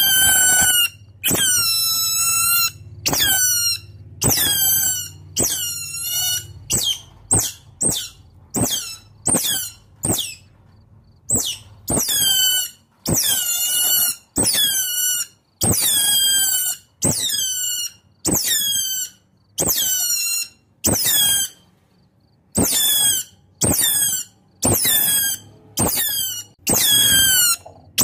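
Otter calling: a long run of high-pitched squealing calls, about one a second, each dropping in pitch at its start and then holding. It is a contact call, used here as a lure to draw wild otters in.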